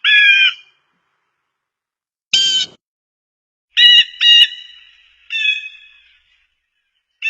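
Blue jay calling repeatedly: about six short calls with silent gaps between them, one higher and scratchier call about two seconds in.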